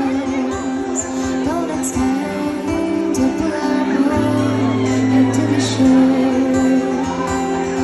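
Live band music from a slow song: a woman singing over the band, with electric bass underneath.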